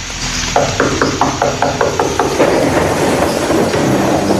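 Sound effect of someone pounding on a door: a quick run of blows, about five a second, lasting under two seconds. Storm noise of thunder and rain then swells up.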